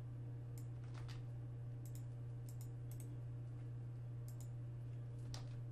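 Computer mouse clicking about a dozen times at irregular intervals, over a steady low electrical hum.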